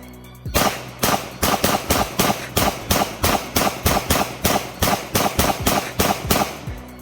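Glock 17 Gen 3 9mm pistol fired in a rapid string of about four shots a second, emptying an OEM Glock magazine of handloaded rounds without a jam.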